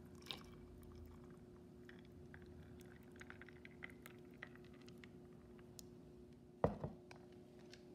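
Thick fruit juice poured over ice cubes in a drinking glass: a faint trickle with small crackles and clicks from the ice, under a steady low hum. A couple of dull knocks near the end.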